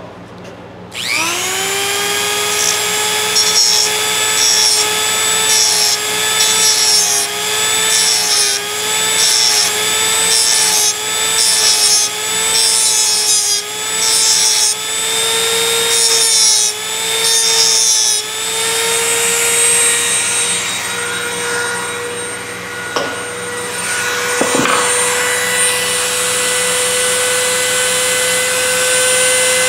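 Dremel rotary tool spinning up to speed, then its cut-off disc grinding in short repeated passes against the steel pivot pin of a pair of pliers. After about 18 seconds the tool runs on unloaded, its high whine slowly rising in pitch, with a couple of brief knocks.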